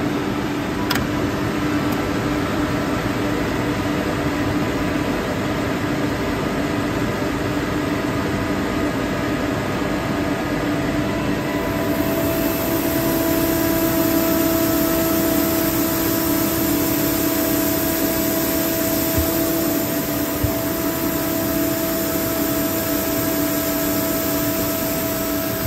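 Fini Plus 20 15 kW rotary screw air compressor running steadily on a test start after a control-unit replacement. There is a click about a second in. About twelve seconds in, a higher tone joins and the sound grows slightly louder.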